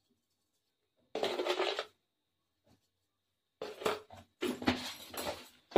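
Salt being scraped and shifted around the bottom of a metal kadhai, in short scratchy bursts: one about a second in, then several close together from past halfway.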